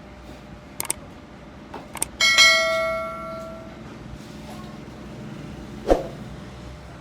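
A few sharp clicks, then a metal object struck once, ringing like a small bell and fading over about a second and a half; another knock comes near the end.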